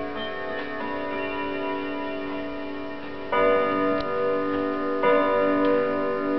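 Miller Heirlooms grandfather clock: chime tones ring on and fade, then the hour strike for five o'clock begins about halfway in, with two loud strikes about a second and a half apart, each ringing on.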